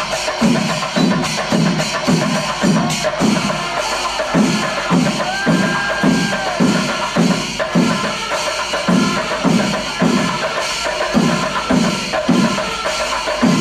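Kerala panchari melam percussion ensemble playing: chenda drums and ilathalam cymbals beat steadily about twice a second over a continuous cymbal shimmer. A brief held horn note sounds about halfway through.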